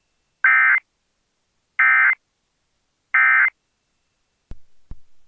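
Emergency Alert System end-of-message data tones: three short bursts of electronic warbling, evenly spaced about 1.3 s apart, signalling that the AMBER Alert broadcast is over.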